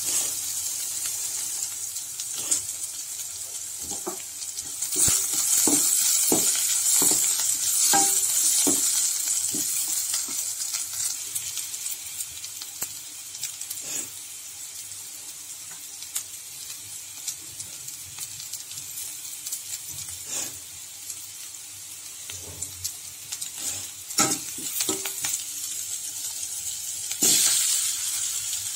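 Sliced onions and green chillies sizzling in hot oil in a steel pan, with a utensil clicking and scraping against the pan as they are stirred. The sizzle grows louder for a few seconds about five seconds in and again near the end.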